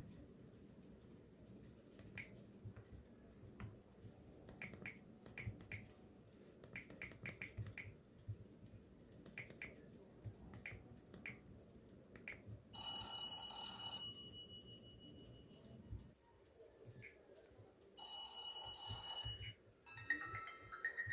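Kazuma eTalk mobile phone: soft, scattered button clicks, then ringtones playing from its small speaker. There are two bright electronic ringtone bursts, each about a second long, and a third starts near the end.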